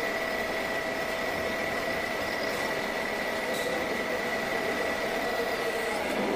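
Drilling machine running, its twist drill cutting into a steel ring under coolant: a steady machine hum with a constant high-pitched whine.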